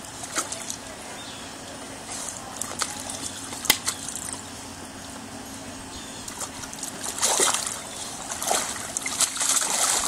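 Water splashing and sloshing in a shallow plastic kiddie pool as a large dog wades and moves around in it, with a steady trickle under it; the splashing gets louder about seven seconds in.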